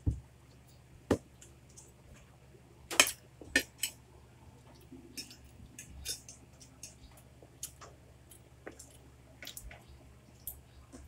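Metal spoon and fork clinking and scraping against a plate while eating. Several sharp clinks come in the first four seconds, then lighter, scattered clicks.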